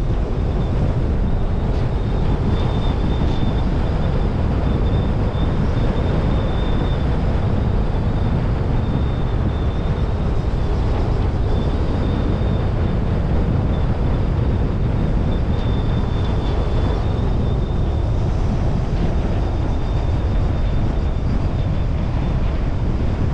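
Car driving on a road: steady rumble of tyres, engine and wind. A faint, thin high tone comes and goes above it.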